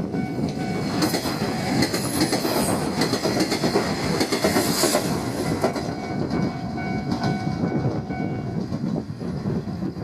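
A 1500-series diesel railcar train passing over a level crossing, its wheels clacking over the rail joints as the engine runs, with the crossing's warning bell ringing.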